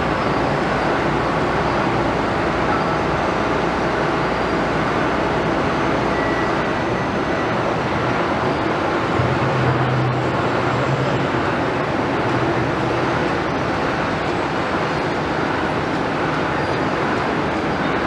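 Steady din of heavy construction machinery: diesel engines of piling rigs, a crawler crane and trucks running together. A low engine note grows louder for a couple of seconds about halfway through.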